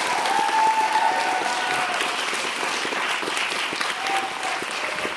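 Audience applauding at the end of a performance, a dense steady clapping that began abruptly out of silence.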